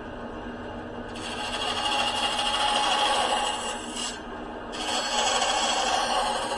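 Power saw running steadily while its blade cuts a wooden fin blank, in two stretches of louder cutting with a short easing-off between them as the piece is turned.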